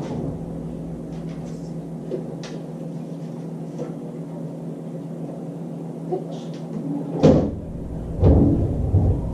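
A refrigerator door being pulled open with a sudden thud, followed about a second later by a longer bout of bumping and rattling.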